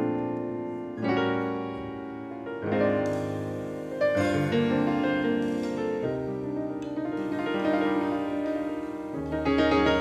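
Live jazz piano opening a tune with sustained chords struck about every second or two, then moving into flowing notes. A high shimmer joins about three seconds in, and a low acoustic bass note comes in near the end.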